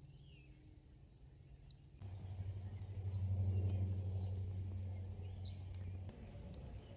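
Quiet background music of low sustained notes that change to a lower, louder note about two seconds in, with faint bird chirps over it.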